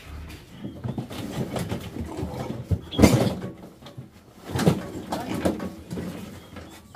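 Piglets grunting and squealing as they are handled in a wire cage, with two loud outbursts about three seconds and four and a half seconds in.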